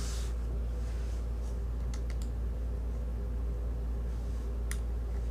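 A few light clicks from handling and pressing the buttons of a cordless tire inflator, over a steady low hum.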